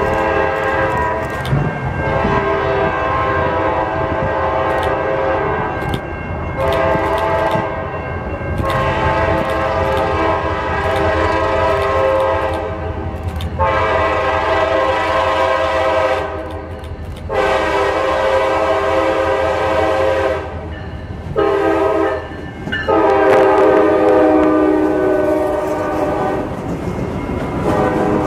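CSX freight locomotive's multi-note air horn sounding a long series of blasts for the grade crossing, mostly long with a few short ones, over the low rumble of the diesel locomotive. The horn is loudest near the end as the locomotive passes close by.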